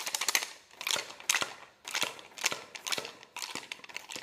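Rapid, irregular clicking and scraping of a tool working inside a dry bamboo flute tube to push out a foam stopper lodged too deep.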